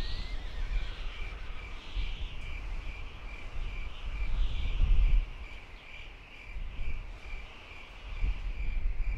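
Outdoor nature ambience: a high chirp repeating steadily about two to three times a second over a thin hiss of insects, with a short rising bird whistle at the start. A low rumble underneath swells to its loudest about five seconds in.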